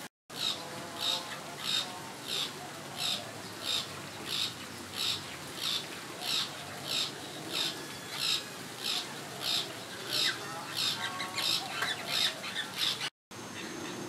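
A bird giving a short, sharp squawk over and over at an even pace, about three calls every two seconds. The sound cuts out for a moment just after the start and again near the end.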